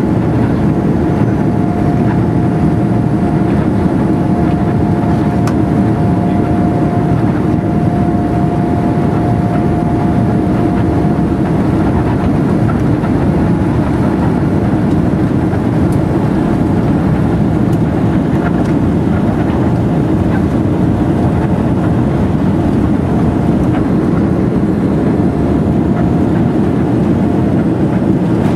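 Steady cabin rumble and hiss of a Boeing 787-9 taxiing, its engines at low thrust. A faint steady whine sits over the rumble for about the first ten seconds.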